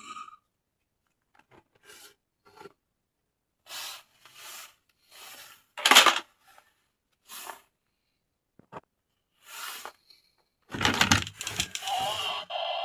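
Toy packaging being handled and rubbed in short separate bursts, the loudest about halfway through. Near the end a battery-powered toy switches on and plays a steady, warbling electronic sound effect.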